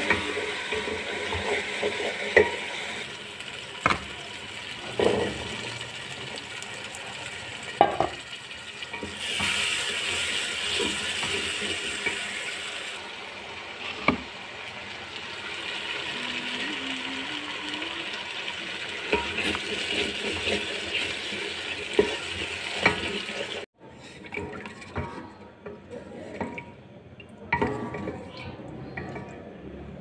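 Masala cooking in a metal pot as it is stirred with a wooden spoon, a steady sizzle with several sharp clicks of utensils against the pot. The sound drops off at an abrupt cut about two-thirds of the way in and turns quieter and patchier.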